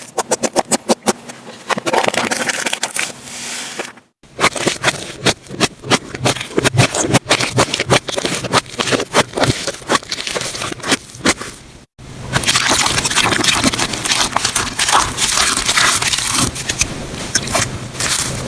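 Slime being squeezed, poked and stretched by hand, making dense rapid crackling, clicking and popping. The sound breaks off briefly twice, about four seconds in and near twelve seconds, as it switches to another batch of slime.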